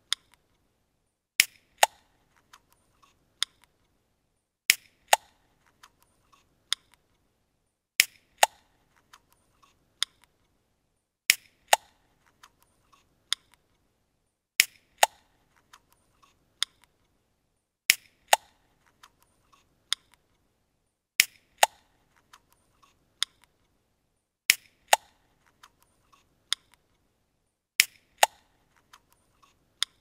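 Aluminium drink can being opened, over and over: the ring-pull tab gives a sharp double crack, followed by a few small clicks. The same pattern repeats about every three seconds, nine times.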